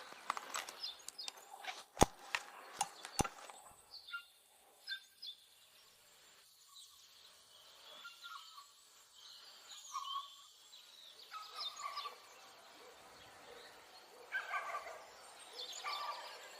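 A few sharp knocks about two to three seconds in, then faint bird chirps in the background.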